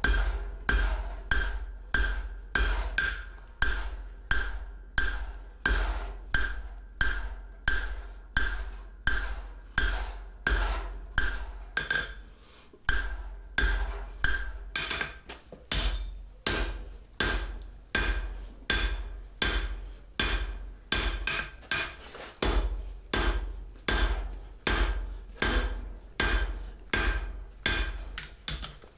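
Blacksmith's hand hammer striking hot steel flat bar on an anvil, setting down a step over the horn: steady blows about two a second, each with a short metallic ring, and one brief pause about halfway through.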